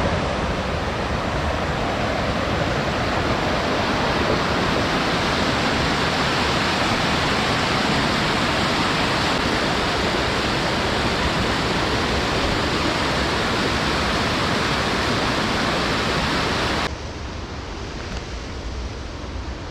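Steady rushing of river water, an even noise with no pitch to it, dropping to a quieter level about seventeen seconds in.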